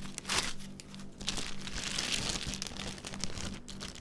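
Clear plastic packaging bag crinkling and foam packing inserts rustling as a laptop is unpacked: a short burst about a third of a second in, then a longer stretch of crinkling from about a second in until near the end.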